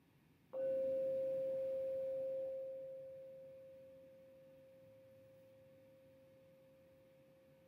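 Small metal singing bowl struck once with a mallet about half a second in, ringing with one clear steady tone and a faint higher overtone that fades slowly over several seconds. It is rung to close the guided meditation.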